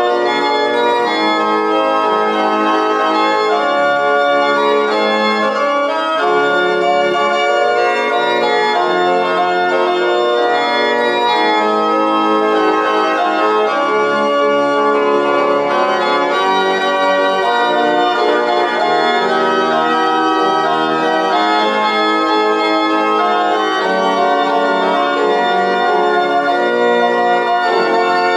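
Organ playing a hymn tune in held chords, the notes changing every second or so.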